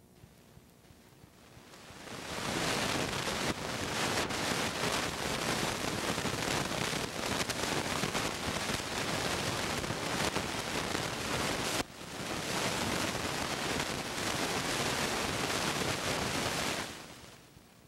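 Steady loud hiss-like rushing noise, even from low to high pitches, swelling in about two seconds in, dropping out for an instant near the middle and fading out near the end.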